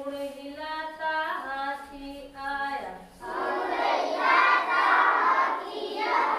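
Voices imitating animal calls: a long, held, pitched call that steps in pitch, then a rougher, noisier call from about three seconds in.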